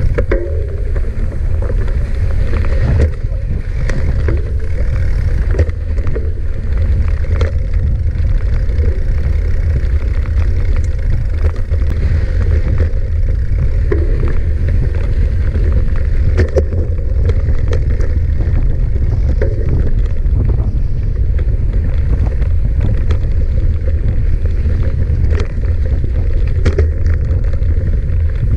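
Wind buffeting the microphone of a camera riding on a moving mountain bike, a heavy steady rumble, with frequent clicks and knocks from the bike rattling over rough ground.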